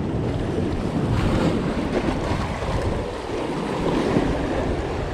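Wind noise on the microphone over surf washing against the rocks of a jetty.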